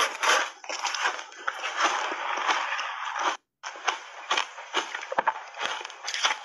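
Soft refrozen shaved ice crunching close to a lapel microphone, first as a dense crackle while a metal spoon cuts and scoops into it, then as separate sharp crunches while it is chewed. The sound cuts out completely for a moment about halfway.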